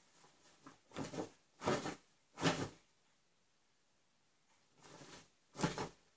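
Short bursts of rustling noise close to the microphone, three in quick succession, then a pause, then two more near the end, as a person moves right next to the phone.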